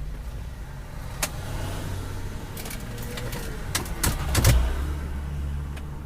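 Jeep Wrangler JK gear shift lever being moved: a sharp click about a second in, then a run of clicks and a louder clunk about four and a half seconds in, over a steady low hum.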